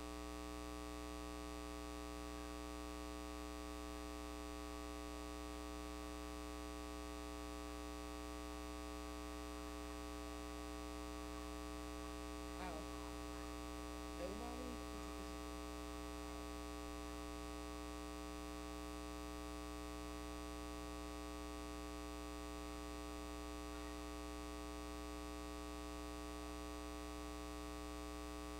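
Steady electrical mains hum, with a faint voice speaking a few words about halfway through.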